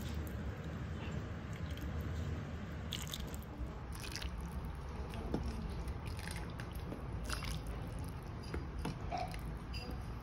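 Soft scattered clicks and small knocks of a serving ladle and bowl over a steady low hum.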